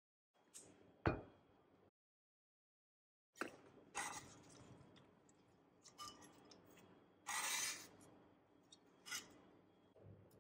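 Quiet kitchen clatter: a sharp knock about a second in, then scattered clinks, taps and scrapes of a knife, a ceramic bowl and a spoon as an apple is sliced on a wooden cutting board and stirred in a bowl of water.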